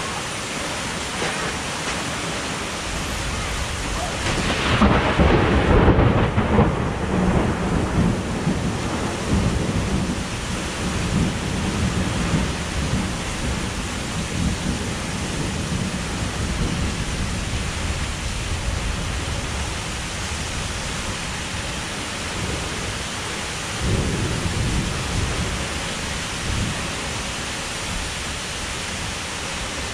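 Heavy rain pouring steadily in a thunderstorm. A loud rumble of thunder comes about five seconds in and fades over several seconds, and a second, softer rumble follows late on.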